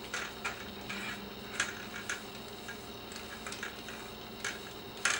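Amazon Basics pistol-grip ball head being screwed by hand onto the tripod's centre-column mounting screw: a run of small, irregular hard clicks and scrapes, a few each second.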